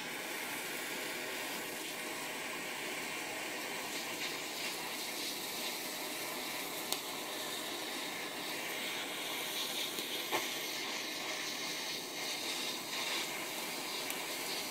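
Handheld kitchen blowtorch flame hissing steadily while it caramelizes the sugar topping of a crème brûlée, with a couple of brief clicks.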